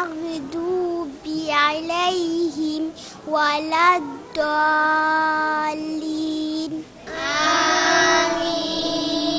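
A young girl singing alone in drawn-out melodic phrases with long held notes, then a group of girls singing together from about seven seconds in.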